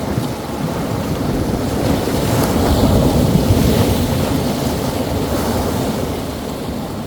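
Rough sea waves breaking on the shore: a rush of surf that swells to a peak about three to four seconds in and then eases off.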